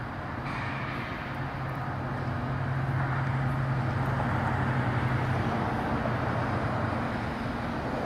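Distant jet airliner's engines heard as it lands: a steady rumble with a low hum that swells to its loudest midway and eases off near the end.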